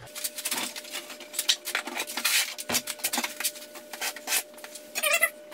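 Wooden frame legs of two-by-four lumber being handled and laid down on a concrete floor: a run of irregular knocks, clatters and rubbing of wood on wood and on the floor, over a faint steady hum.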